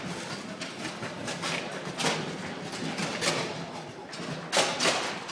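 Foosball table in play: the ball is struck and knocked about by the rod-mounted players, giving a few sharp knocks, the loudest two close together near the end, over a low hall murmur.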